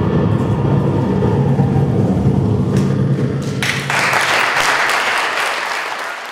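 Low droning music with steady bass tones fades away. About three and a half seconds in, the theatre audience breaks into applause, which then fades out.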